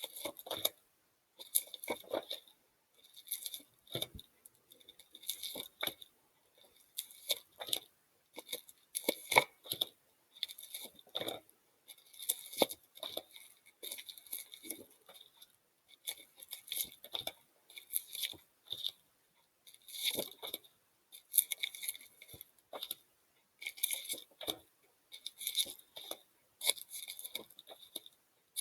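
Paper letter cards being flipped and handled: a faint, short papery rustle or slap every second or two, repeated over and over.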